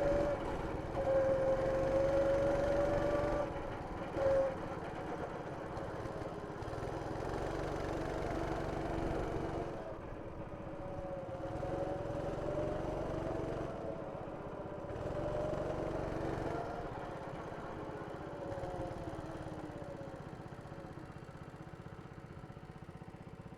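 Go-kart engine running, its pitch rising and falling as the throttle opens and closes. Loudest in the first few seconds, then fainter.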